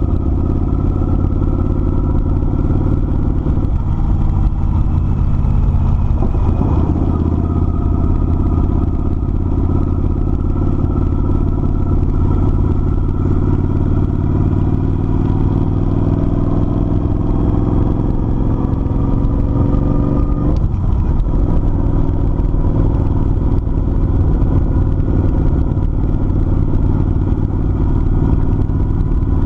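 Kawasaki Vulcan 900 V-twin motorcycle engine under way, its pitch climbing as it accelerates and dropping sharply at gear changes about six seconds in and again about twenty seconds in.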